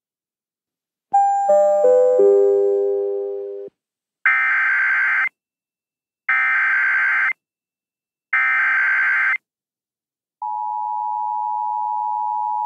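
A four-note falling chime, then three one-second bursts of Emergency Alert System SAME header data, evenly spaced. About ten seconds in the EAS two-tone attention signal starts and holds steady. Together these open an EAS tornado warning broadcast.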